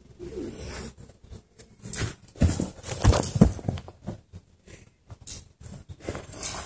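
Hands and feet thudding on the ground as a person runs on all fours and jumps a low rope: a quick run of thuds, the heaviest about two to three and a half seconds in.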